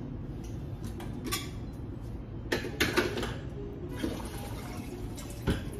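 Water running at a kitchen sink, with a few short clatters of pans and utensils.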